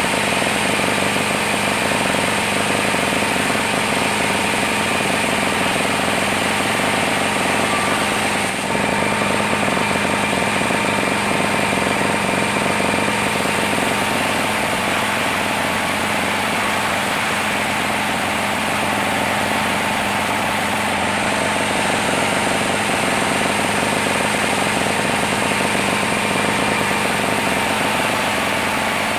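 Sawmill machinery running steadily, its saw cutting through a large saman (rain tree) log: a loud, continuous mechanical din with a few steady tones in it, dipping briefly about eight and a half seconds in.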